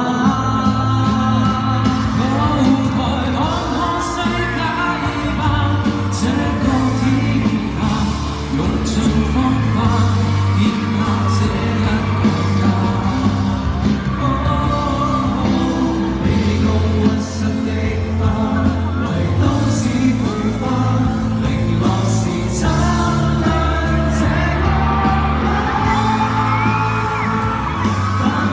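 Live pop band music with singing: steady bass and drums under sustained chords and a melodic vocal line, with some shouts from the audience.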